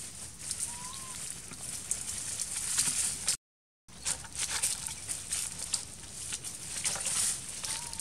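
Dry leaf litter crackling and rustling as macaques shift and forage in the undergrowth, with a short, faint rising-falling chirp about a second in and again near the end. The sound drops out completely for about half a second a little before the middle.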